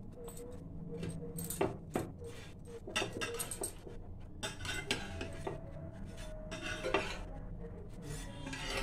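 Steel spatula scraping and knocking against a nonstick tawa as toasted sandwiches are lifted off it, in irregular clinks and scrapes.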